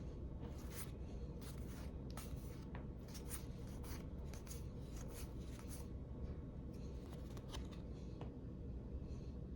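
Pokémon trading cards being flipped through by hand: a string of faint, irregular swishes and flicks as cards slide off the stack, thinning out after about six seconds.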